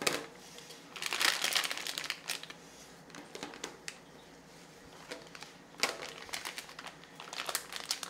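Piping bag crinkling and rustling as filling is put into it, in spells: a longer one about a second in, then shorter ones around six seconds and near the end.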